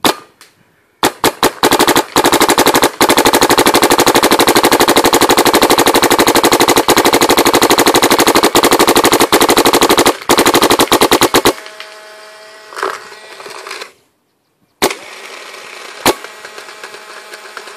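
Dye DMC electropneumatic paintball marker with a Virtue board firing in PSP ramping mode, capped at 12.5 balls per second. A few single shots come first, then a fast, even stream of shots for about nine seconds. Near the end there are a few more single shots.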